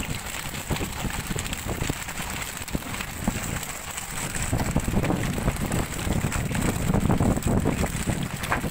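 Wind buffeting the microphone over the rush of the sea aboard a fishing boat, the low rumble swelling about halfway through.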